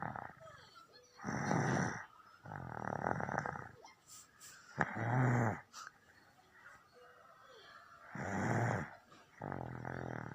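A baby snoring in sleep: about five snores at uneven intervals, with a longer pause in the middle.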